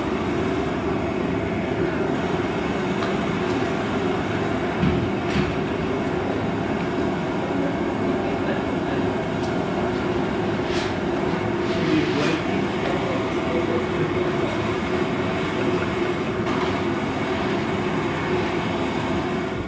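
A power saw running steadily, cutting through a 2x6 framing stud, with a few sharp knocks along the way.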